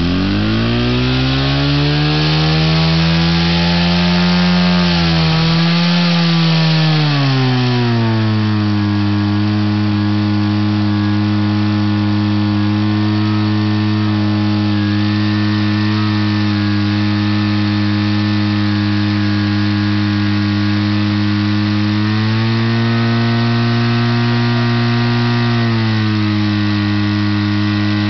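Portable fire pump engine running hard. It revs up at the start and holds high, eases to a steady lower speed after about eight seconds, then rises and falls again near the end.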